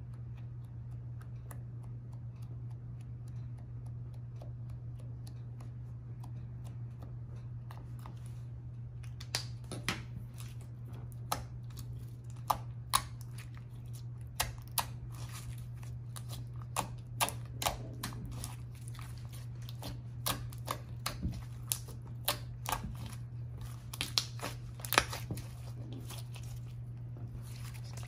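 White slime being folded and squeezed by hand: from about nine seconds in, a string of irregular sharp wet clicks and pops as air pockets burst in the slime. Before that, faint light tapping from a marker tip dabbed onto the slime, all over a steady low hum.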